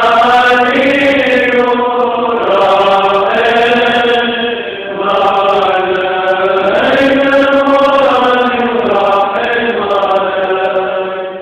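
Syrian Orthodox monks chanting Lenten prayer together, in long drawn-out notes that rise and fall. There is a short breath pause a little before halfway, and the chant falls away at the very end.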